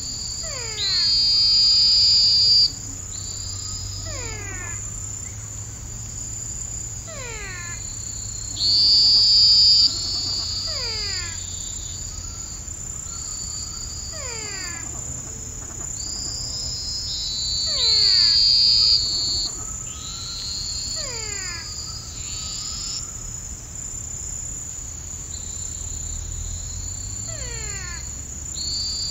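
Pantanal wetland chorus of insects and frogs: a steady high-pitched insect trill, repeated falling whistled calls every few seconds, and three louder calls that stand out, about eight seconds apart.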